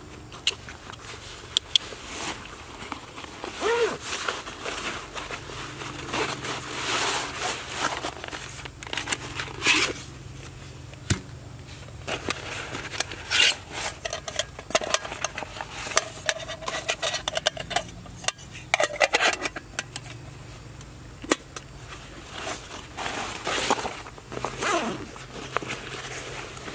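A nylon backpack being opened and unpacked by hand: fabric rustling, with irregular clicks and scrapes of buckles and gear being pulled out.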